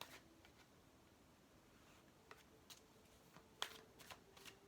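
Near silence with a few faint, scattered clicks and taps of tarot cards being handled; the most distinct tap comes about three and a half seconds in.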